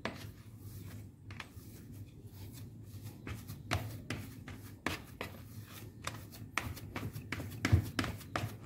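Green plastic rice paddle stirring and pressing moist fishing-bait dough in a plastic basin: irregular scrapes and soft taps of the paddle against the dough and the basin, with a few sharper knocks in the second half.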